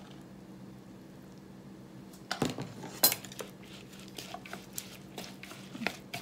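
Wooden chopsticks clicking and scraping against a glass mixing bowl, stirring extra flour into a loose shredded-carrot batter. The clicks start about two seconds in, with one sharp clack near three seconds, over a low steady hum.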